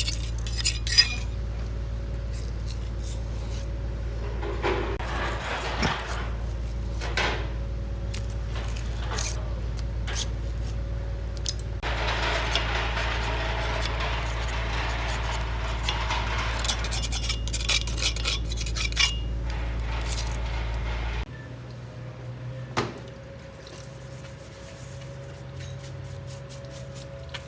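Metal tools and parts clinking and scraping during hands-on repair work, over a steady low hum that cuts off suddenly about 21 seconds in.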